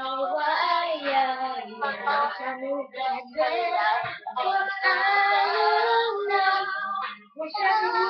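A young girl singing a song on her own, in phrases of held, sliding notes, with brief breaks for breath between them.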